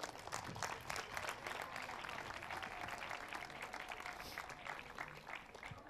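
Applause, many people clapping at a fairly low level, thinning out near the end.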